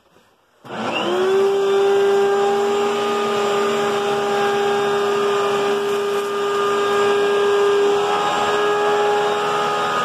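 Hoover Agility cyclonic bagless upright vacuum cleaner switched on about half a second in: its motor spins up with a quick rising whine, then runs at a steady high whine while it is pushed over carpet.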